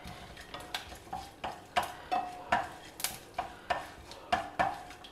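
Wooden spatula stirring groundnuts, dals and curry leaves in ghee in a kadai: quick scrapes and knocks against the pan, about three a second.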